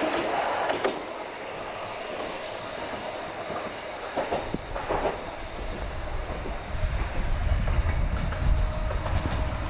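Tram running along its track: steel wheels rolling on the rails with a few clicks over rail joints about four to five seconds in, and a low rumble building through the second half. A level-crossing bell rings and fades out at the start.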